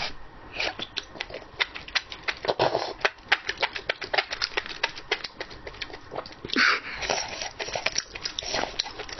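Close-miked mouth sounds of someone eating chewy octopus tentacles: quick wet clicks and smacks of chewing, several a second, with one longer, louder wet sound about two-thirds of the way through.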